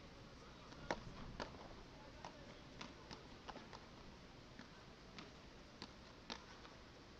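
Beach tennis rackets striking the ball in a fast rally: a string of sharp pops, the loudest about a second in and the rest fainter, spaced roughly half a second to a second apart.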